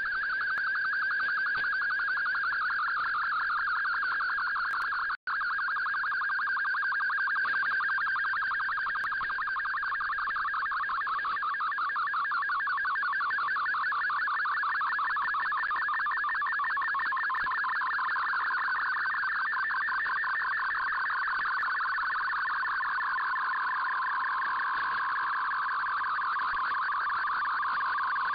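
MFSK-64 digital-mode data transmission received on shortwave in AM, sending a picture: a dense band of rapidly warbling tones over radio hiss. The band narrows and settles lower in pitch toward the end, and the signal cuts out for an instant about five seconds in.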